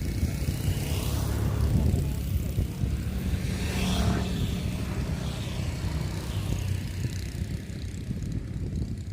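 An engine running steadily with a low hum, and a louder swell that rises and falls about four seconds in.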